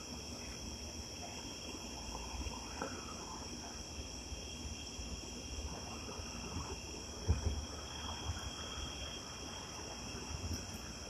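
Faint, steady high-pitched insect chirring, crickets by the sound of it, with a soft low bump about seven seconds in.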